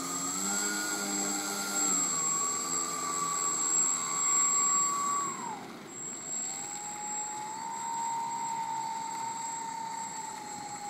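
Radio-controlled model airplane's motor and propeller whining as it taxis on the ground. The pitch climbs with the throttle, holds, drops about halfway through, then climbs again and holds steady.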